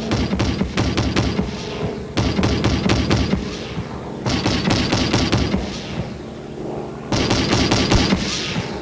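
40mm L/70 Bofors anti-aircraft gun firing rapid automatic fire, several shots a second, in runs of about two seconds with brief pauses between them.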